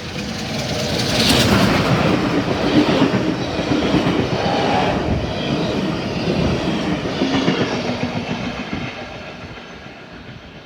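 Steam-hauled train behind NSW C32-class locomotive 3265 passing close by, its wheels clattering over the rail joints. It grows louder about a second in and fades away near the end.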